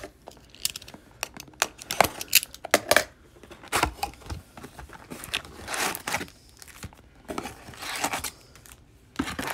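A sealed cardboard trading-card hobby box being torn open. A quick run of sharp crackles and clicks comes first, then several longer tearing, rustling sweeps as the lid is lifted and the wrapped card packs inside are handled.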